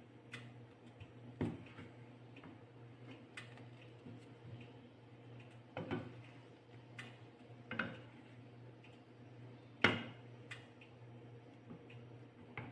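Irregular sharp clicks and knocks from a pan of coconut and sugar cooking on the stove, about one every second or two and loudest near the end, over a steady low hum.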